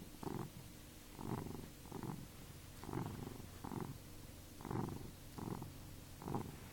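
A sleeping pet snoring: a breath sound about every second, alternating in and out.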